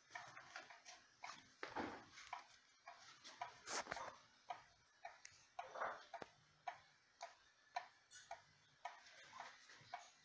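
Skeleton wall clock with an 8-day mechanical movement ticking steadily, about two ticks a second, with a few louder sounds mixed in.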